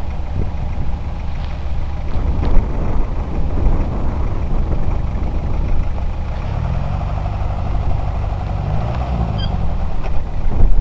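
Off-road 4x4's engine labouring as it crawls slowly through mud, under a heavy low rumble. Its note rises and falls between about six and nine and a half seconds in.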